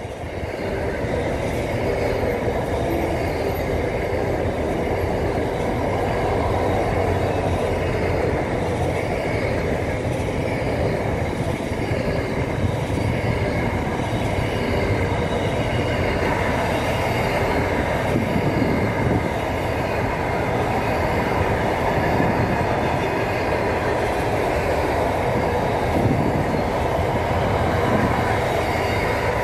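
Freight train of double-stacked container wagons rolling steadily past close by: a continuous rumble of wheels on the rails, with faint steady whining tones from the wheels.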